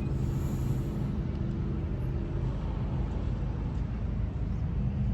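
A steady engine drone, with wind rumbling on the microphone.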